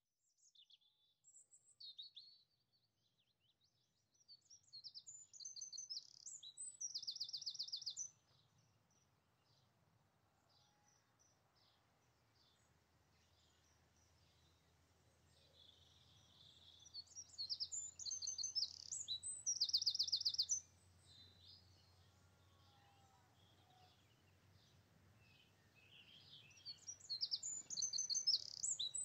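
A songbird singing, three times over: a quick phrase of high twittering notes that ends in a fast, even trill, with a few short high calls just before the first.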